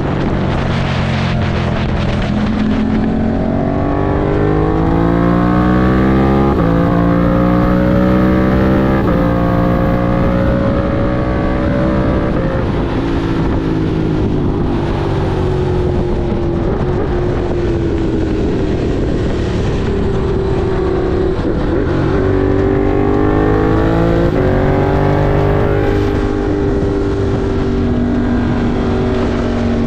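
Ducati Monster 1200 R's 1198 cc L-twin engine under way, its pitch rising as it accelerates and falling as it eases off, with steps at gear changes, climbing twice and holding steady near the end.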